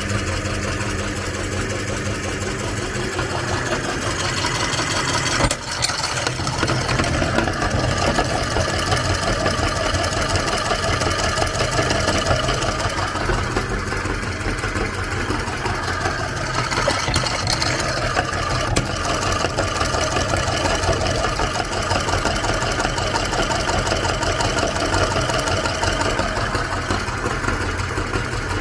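Electric meat grinder running steadily, its motor humming under load as it grinds bars of coloured soap.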